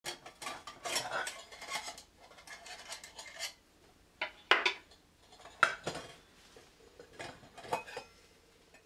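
Metal spork and sierra cup with its lid being handled: rubbing and scraping for the first few seconds, then about six sharp metallic clinks as the lid, cup and spork are moved and set down.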